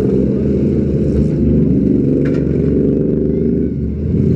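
Demolition derby car's engine running steadily, loud and heard close up from above the open engine bay, with a brief dip in level near the end.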